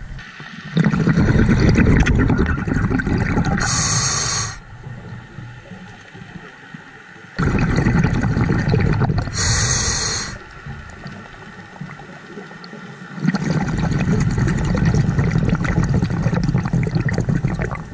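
A diver breathing through a scuba regulator underwater: three breath cycles about six seconds apart, each a loud bubbling rush, and the first two end in a brief high hiss.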